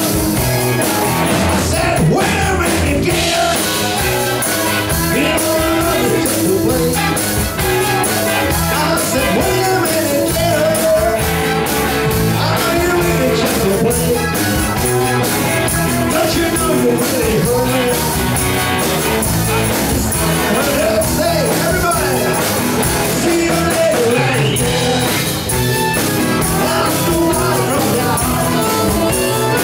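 Live rock-and-roll band playing: electric guitars, bass and drums with a singer's voice over them, steady and loud with no break.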